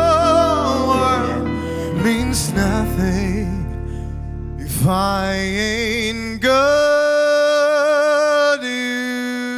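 A male singer holding long, wavering notes in a slow soul ballad over band accompaniment. The low backing drops away about seven seconds in, and the voice carries on with its loudest held note.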